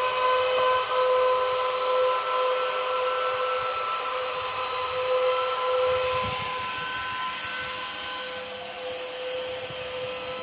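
Cooling fans of a running Bitcoin mining machine: a steady whine made of several tones at once over a rushing hiss, a little quieter in the last few seconds. A few low knocks come about six seconds in.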